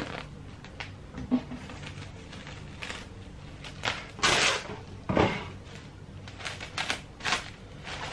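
Plastic cling wrap crinkling and rustling as bleach-soaked, rubber-banded fabric bundles are wrapped by hand, with scattered light clicks and knocks. The louder rustles come about four and five seconds in.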